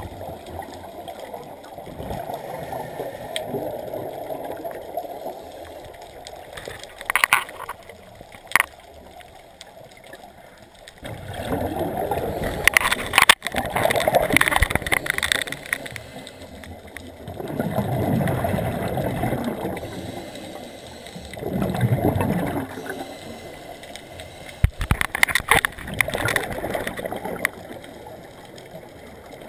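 Scuba breathing heard underwater: regulator exhalations release several gurgling bursts of bubbles, one after another in the middle of the stretch. A few sharp clicks come between them.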